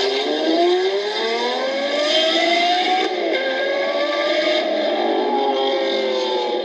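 Car engine accelerating hard. The pitch climbs for about three seconds, drops sharply at a gear change, then holds roughly level before dropping again at the end.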